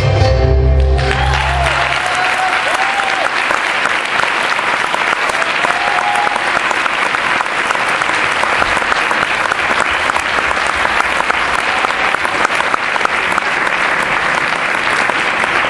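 The tango music ends about a second in, and an audience applauds steadily, with a few voices calling out early in the applause.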